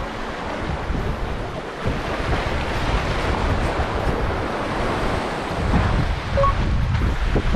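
Wind gusting against the microphone over the steady wash of sea waves on the shore.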